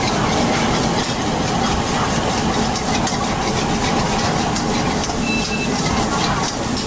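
Fried rice with egg, ham and kelp shreds being stir-fried in a wok over a strong burner: a steady hiss with repeated clanks and scrapes of the metal utensil against the wok.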